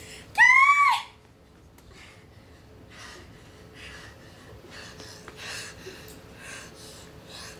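A woman's short, loud, high-pitched scream about half a second in, its pitch arching up and then down, a mock horror-movie scream. It is followed by a string of quieter breathy gasps and snorts.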